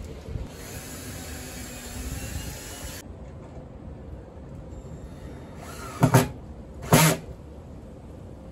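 Handling noise from a metal breaker box being lifted and set against the wall, a rustling scrape over the first few seconds. Later come two short, loud whirring bursts about a second apart, from a cordless drill driving the box's mounting screws.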